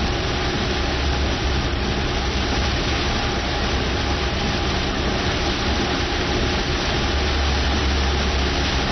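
Torrential rain pouring down in a steady, dense hiss, with a low rumble underneath.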